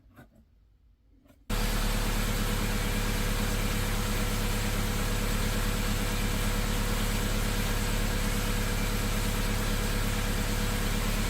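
1991 Honda Civic's four-cylinder engine idling steadily, cutting in suddenly about a second and a half in after near silence. The engine is suspected of a blown head gasket letting exhaust gases into the cooling system.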